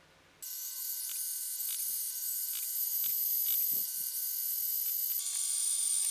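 Electric wood router's motor running at high speed with a steady high whine, switching on suddenly about half a second in. Its pitch shifts about five seconds in.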